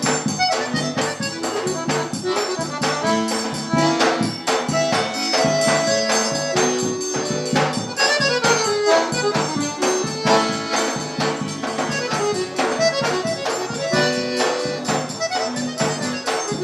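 Instrumental break of a São João forró-style song: accordion playing the melody over a steady, busy percussion beat with jingling shaken percussion.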